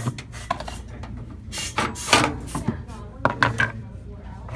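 Hard drives being worked out of a desktop computer's steel case: a string of sharp clicks and knocks with short scrapes of metal and plastic parts, irregular and without any steady hum.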